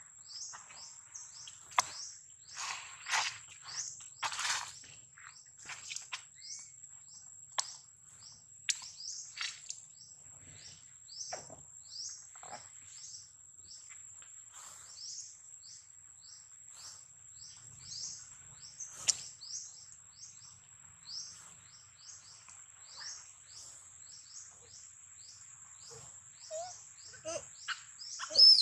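Outdoor bird and insect sound: a steady high insect whine with short, high, falling chirps repeated about twice a second, and a few short squeaks near the end.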